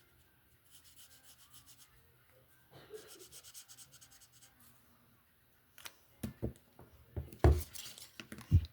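Cardboard bricks being handled: soft rhythmic rubbing and scraping, then from about six seconds in a run of sharp knocks and thumps, the loudest near the end.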